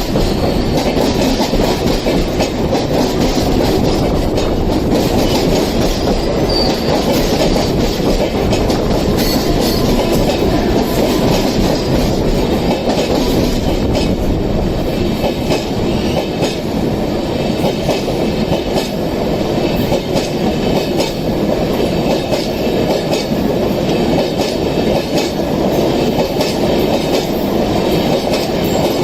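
A passenger train's coaches running steadily at speed, a continuous rumble of wheels on rails with the clatter of rail joints and a touch of wheel squeal.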